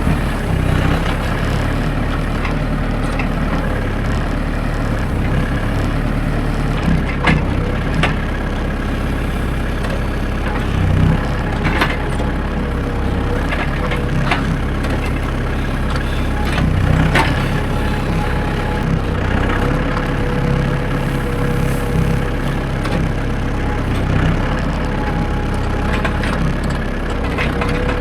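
Tractor engine running steadily at a constant speed, with a few sharp clicks and knocks from the machine now and then.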